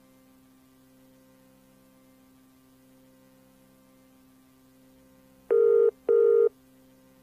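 A faint steady hum, then about five and a half seconds in a telephone ringback tone sounds as two short beeps in quick succession, the double-ring pattern of a British-style phone line: a call ringing, waiting to be answered.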